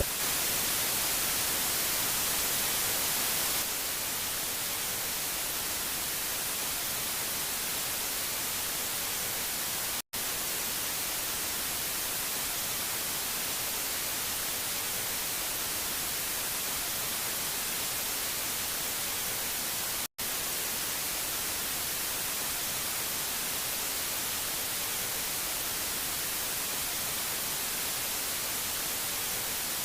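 Steady static hiss, dropping slightly in level a few seconds in and cutting out for an instant twice, about ten seconds apart.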